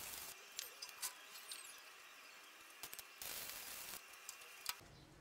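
Metal workshop sounds: two short bursts of hiss, at the start and about three seconds in, with scattered sharp metallic clicks and clinks between them.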